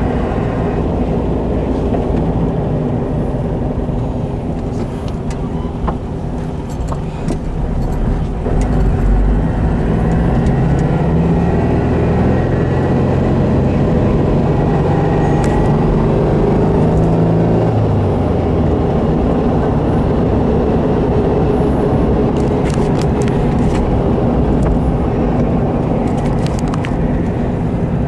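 Porsche 356C 1600 SC's air-cooled flat-four engine running as the car is driven, with road and wind noise. The engine pitch climbs under acceleration about a third of the way in, then falls away a few seconds later as the driver lifts off.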